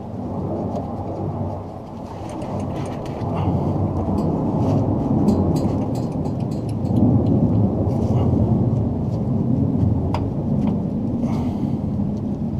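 Low rumble of a jet aircraft passing overhead, swelling to its loudest around the middle and easing off near the end, with light clicks and taps on top.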